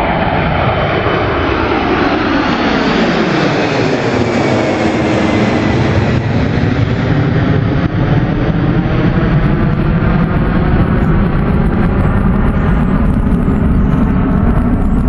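Jet airliner's engines at takeoff power as it passes, most likely a Boeing 767. A sweeping tone in the noise falls in pitch over the first several seconds, then settles into a steady low rumble as the aircraft climbs away.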